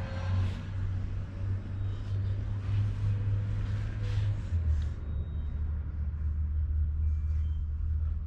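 Steady low rumble, with a faint hiss above it.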